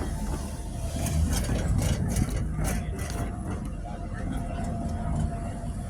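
Heavy engine idling with a low steady rumble, scattered knocks, and a faint steady tone joining about halfway through.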